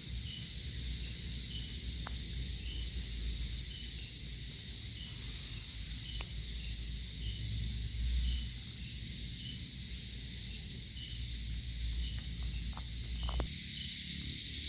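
Insects chirping: a steady high buzz with short chirps repeating regularly, over a low rumble that stops shortly before the end, with a few faint clicks.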